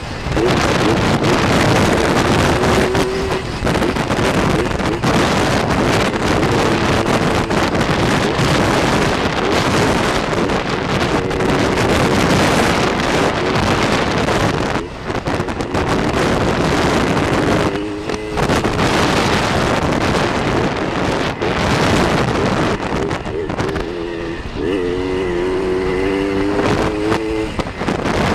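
Kawasaki KDX 80 two-stroke dirt bike engine running under way, heard from on the bike, with heavy wind buffeting on the microphone. The engine note steps up and down in pitch, most clearly in the last few seconds.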